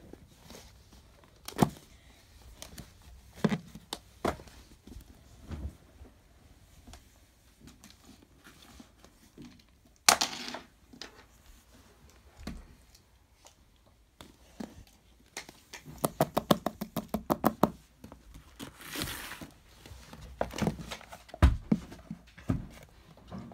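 Handling noises: scattered clicks and knocks, a quick run of about twenty clicks near the middle, a short rustle, and a low thump near the end, as books and a hand-held phone are moved about.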